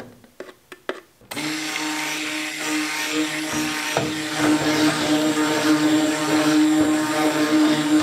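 A few faint clicks, then about a second in a handheld stick blender starts and runs steadily, submerged in soap batter. It is mixing freshly added lye solution into the oils and coconut milk, taking the batter toward emulsion and trace.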